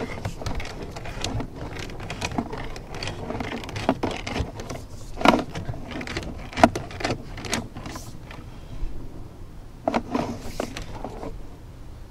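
Irregular clicks, knocks and rustling from a drain inspection camera's push cable being fed into and pulled back out of a kitchen sink waste line.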